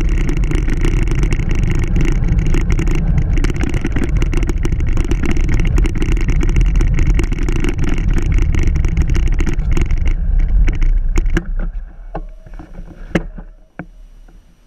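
Wind buffeting the microphone of a handlebar-mounted action camera, together with the rumble of a road bike rolling, loud and steady. About eleven seconds in the noise falls away as the bike slows to a stop, leaving a few sharp clicks and knocks.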